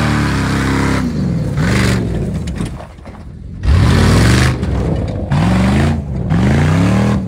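Jeep SUV's engine revving hard in repeated surges, pitch rising and falling, as it labours to climb a steep dirt bank. The strongest surge comes a little past halfway, followed by two more.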